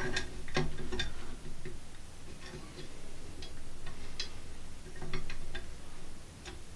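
Irregular light metallic clicks and taps of steel spring wire being handled and set against a steel clamping jig.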